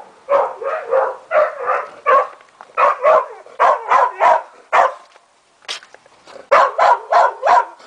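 Dog barking over and over, about three barks a second, with a short break around the middle before it starts up again.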